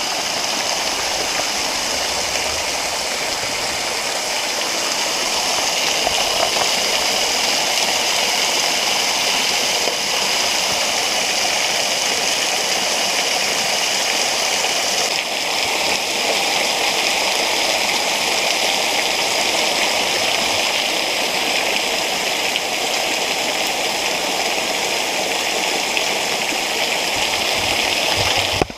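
Steady rush of water falling and flowing in a rocky creek, a dense hiss with no breaks. Its tone shifts slightly about halfway through.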